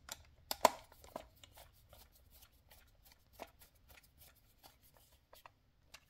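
Scattered small clicks and ticks of a screwdriver turning a screw into a dryer timer's motor mount, with a sharper click about half a second in.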